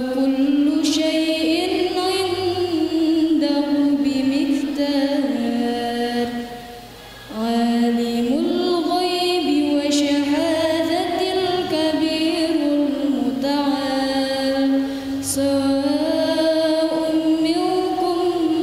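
Quranic recitation: a single voice chanting Arabic verses in long, melismatic held phrases, with a breath pause about a third of the way in before the next phrase.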